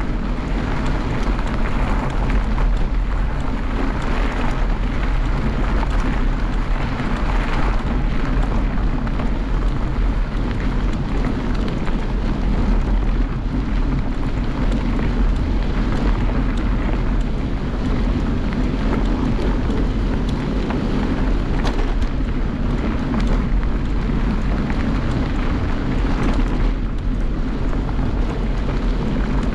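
Steady wind noise on the microphone mixed with tyres rolling over a dirt trail, from a bike ridden at speed.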